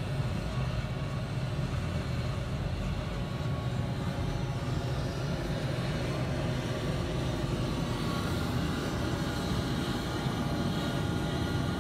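Steady low rumble of a car rolling slowly in traffic, heard from inside the cabin, mixed with a Maryland State Police AgustaWestland AW139 helicopter idling on the ground with its rotors turning. A faint whine comes in over the last few seconds as the car draws level with the helicopter.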